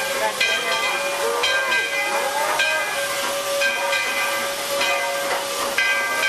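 Steam locomotive's bell ringing about once a second as the engine pulls slowly into the station, over a steady hiss of steam.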